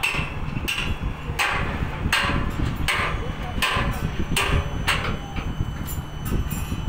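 Hammer blows on the steel of a tower crane mast, each strike ringing briefly, about one every three-quarters of a second, stopping about five seconds in. Steady wind rumble on the microphone underneath.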